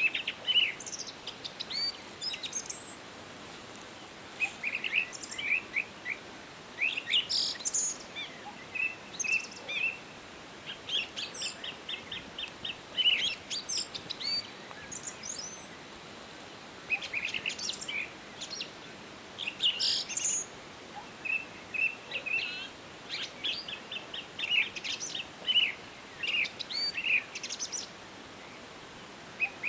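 Songbirds chirping and singing in quick trills of short notes, overlapping calls of several kinds, with a brief lull about halfway through.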